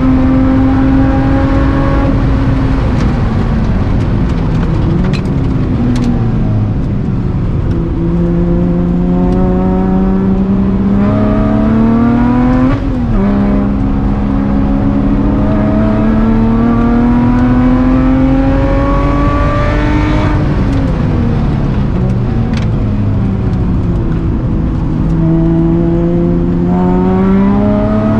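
A Lotus Exige's supercharged 3.5-litre V6 heard from inside the cabin on track: the revs drop as the car slows for corners, then climb hard under acceleration, with one sharp fall in pitch about 13 seconds in as it shifts up a gear. Near the end it slows again, then picks up speed once more.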